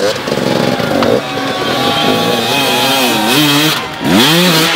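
Hard enduro dirt bike engine revving under load as it climbs over rocks, its pitch repeatedly rising and falling with the throttle, then a sharp rise in revs about four seconds in.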